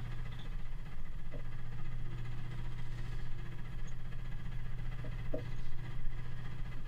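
Quiet room tone with a steady low hum, and a few faint soft ticks from thread being handled on a rod blank, about a second in and a few more near the end.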